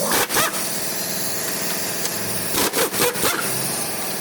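A 2017 Hyundai Accent's engine idling steadily, with a few brief sharp sounds near the start and again about three seconds in.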